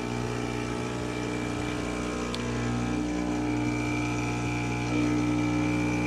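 Expobar Brewtus IV espresso machine's pump running while it pulls a shot: a steady hum with a high whine over it, getting a little louder about five seconds in.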